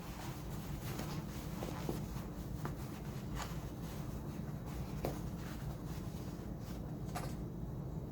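Low steady room hum with faint rustling and a few light taps, like small objects being handled.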